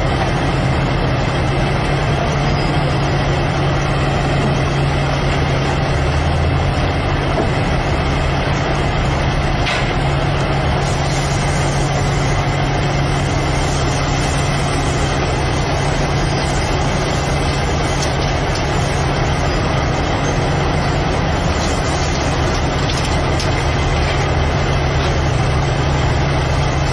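Heavy truck's diesel engine running steadily with a low, even hum.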